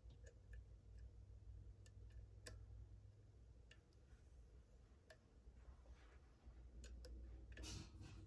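Faint, irregular clicks and scrapes of a lock pick working the pins of a Ri-Key high-security lock cylinder held under a tension wrench, over a low steady hum.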